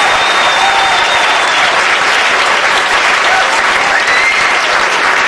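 Audience applauding steadily, with a high held whistle through the first second or so and another shorter one about four seconds in, and a few voices calling out.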